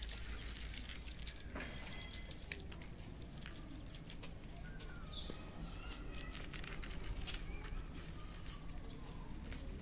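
Cats crunching dry kibble: a dense, irregular run of quick crunchy clicks over a low rumble.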